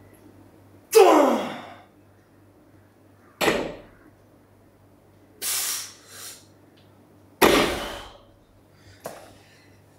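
Barbell deadlift reps with rubber bumper plates: the loaded bar thuds down on the gym floor twice, between sharp, forceful breaths and a loud grunt-like exhale about a second in that drops in pitch.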